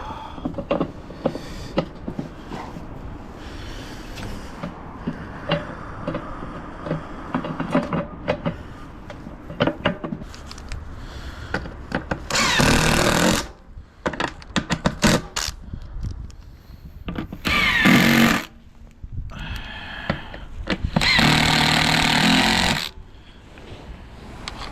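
Power screwdriver running in three short bursts, its pitch rising as it spins up, working on the washing machine's screws, with knocks and clatter of parts being handled in between.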